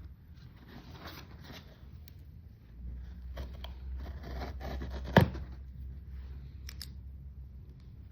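Perfume packaging being handled and opened: irregular rustling and scraping, with one sharp knock about five seconds in.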